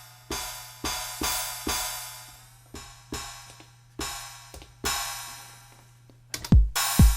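Maschine drum-synth crash cymbal playing a step-sequenced pattern. Each hit rings out with a long decay, so the crashes wash over one another. About six seconds in, a four-on-the-floor kick drum comes in at about two beats a second and is the loudest sound.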